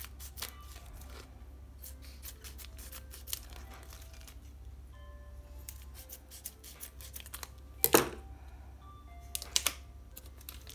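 Plastic packaging around a block of feta cheese crinkling and clicking as it is handled and worked open, with one louder crackle about eight seconds in.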